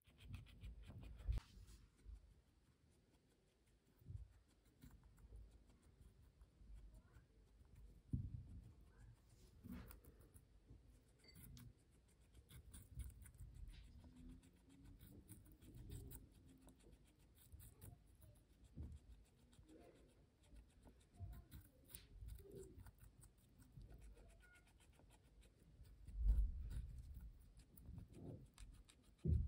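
Guinea pig crunching chunks of a raw orange vegetable: faint, crisp chewing clicks in quick irregular runs, with a few low thumps, the loudest of them near the end.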